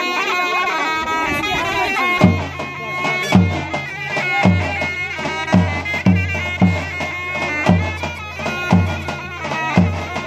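Zurna and davul playing a Sivas halay: the shrill, reedy zurna carries the melody alone at first, then about two seconds in the davul's deep bass strokes come in, roughly one a second, with lighter strokes between.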